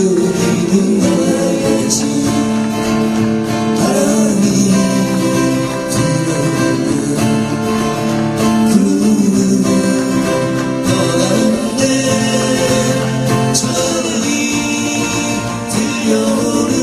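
A song performed with singing over strummed acoustic guitar accompaniment.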